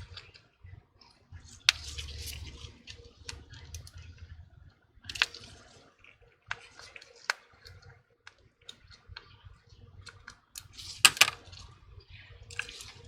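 Scattered small clicks, taps and short scrapes of tools and small phone parts handled on a work surface during a phone repair, the loudest cluster of clicks near the end.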